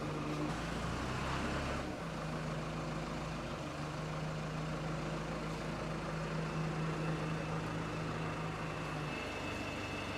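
Steady engine-like drone with a low hum, shifting slightly about two seconds in and again near the end.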